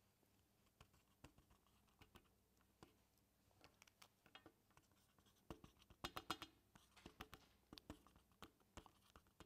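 Near silence with faint, scattered clicks and taps of a laptop keyboard being used, coming more thickly about halfway through.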